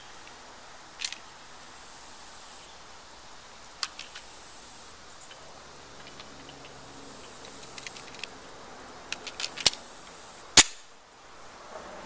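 Sharp metallic clicks and clacks of a compact semi-automatic pistol being handled: a few single clicks, then a quick cluster ending in two louder clacks about ten seconds in. A high insect buzz comes and goes behind them.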